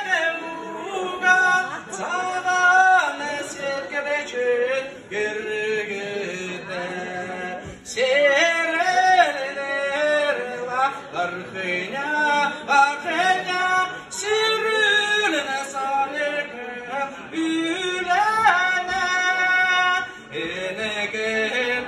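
A man singing a Kalmyk song into a handheld microphone, with long held notes. There is a short break in his singing about eight seconds in.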